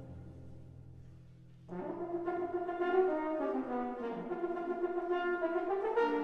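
A low held chord from the wind band fades away. Then, about two seconds in, a solo French horn enters and plays a moving melodic line, note after note.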